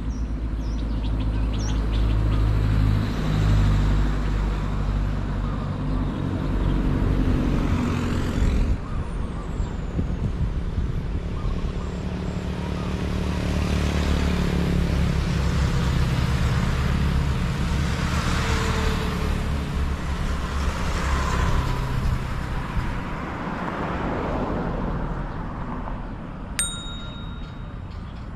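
Road traffic passing: motor vehicles, a motorcycle among them, drive by one after another, the engine and tyre noise swelling and fading in several waves, with a few faint bird chirps.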